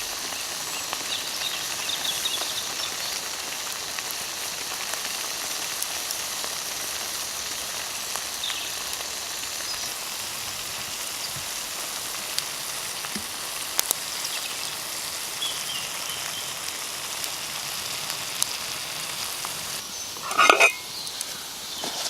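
Spinach sizzling and frying in an old steel non-stick pan, a steady hiss with scattered small crackles. A short, louder scrape or rustle comes near the end, likely a stir of the pan.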